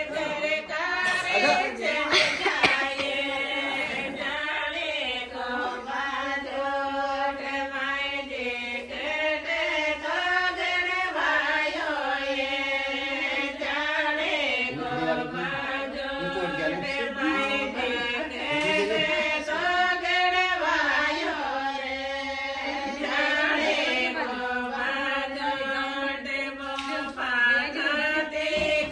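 A group of women singing a traditional folk song together in unison, with long held notes.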